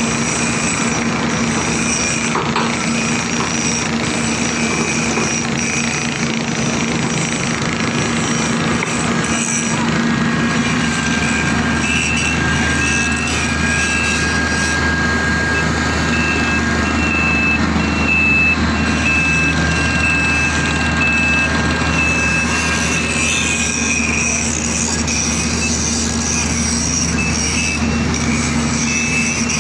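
Heavy construction machine's diesel engine running steadily under load while lifting a steel sheet pile. A high, broken whine comes in over the drone from about twelve seconds in.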